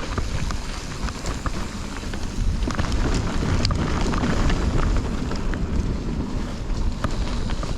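Wind buffeting the microphone on a mountain bike descent, over the steady rumble of tyres on a dirt trail, with frequent sharp clicks and rattles from the bike over rough ground.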